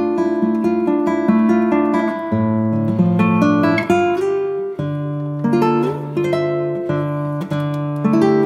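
Background instrumental music of plucked acoustic guitar, a melody of single notes over changing bass notes.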